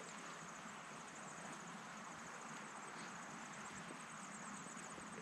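Faint outdoor background: a steady, high-pitched, rapidly pulsing chirring of insects over a low hiss.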